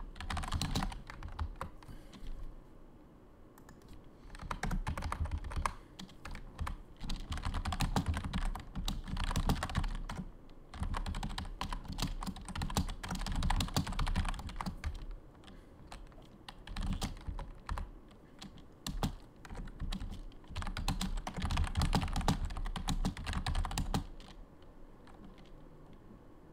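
Typing on a computer keyboard: fast runs of key clicks in bursts of a few seconds, with short pauses between them, stopping near the end.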